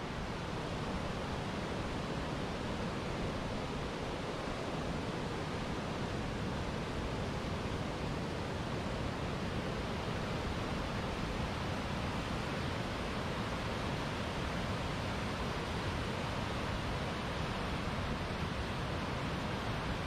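Waterfall's water rushing steadily: an even, unbroken hiss spread from deep to high.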